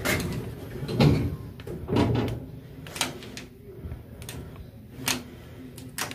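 Elevator floor buttons clicking as a finger presses them again and again, about once a second.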